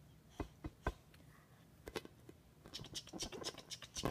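An inflated rubber balloon being handled: a few soft taps, then scratchy squeaking and rubbing of hands on the balloon's skin from about two-thirds of the way in.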